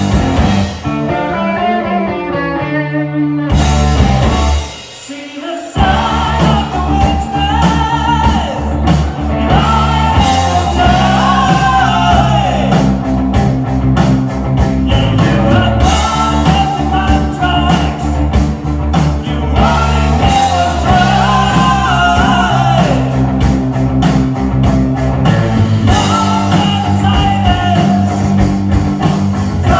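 Live heavy metal band playing electric guitars and drums with a singer. It opens on an unaccompanied guitar riff. The full band crashes in, drops out briefly about four to five seconds in, then plays on with the vocals over it.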